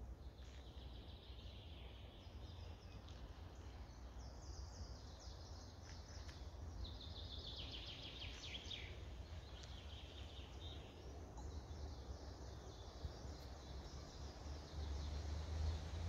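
Several songbirds singing in a forest, their phrases overlapping, with one song falling in a quick run of notes about seven seconds in. Underneath is a low rumble that grows louder near the end.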